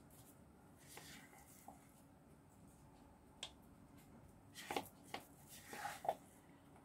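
Faint, scattered clicks and soft scrapes of a spoon scooping soft cottage cheese out of a plastic tub into a ceramic bowl. The sounds grow a little busier a few seconds in.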